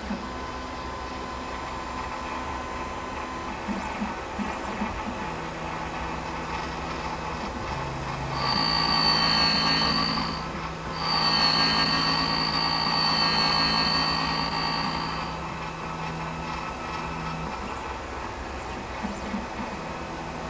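Electronic key-cutting machine cutting the blade of a FOBIK key: the motor starts with a low hum, and about eight seconds in the cutter bites into the blade with a loud high-pitched whine that runs about seven seconds, with a brief break partway, before the motor winds down.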